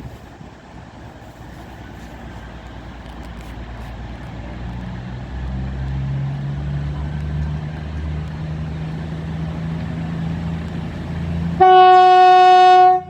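Class 222 Meridian diesel multiple unit pulling away, its diesel engines building to a steady drone. Near the end the train's horn sounds one loud, high, steady note for about a second and a half.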